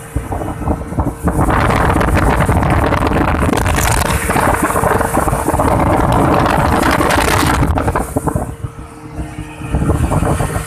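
Outboard motor running at speed on a small boat, with wind buffeting the microphone and water rushing past the hull. The rush is loudest from about one and a half seconds in until about eight seconds, then eases.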